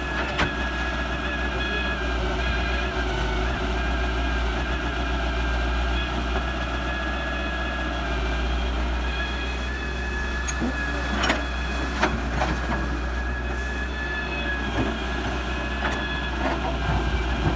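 Heavy diesel machinery running steadily, with a low rumble and a steady high whine, broken by several sharp knocks and clunks.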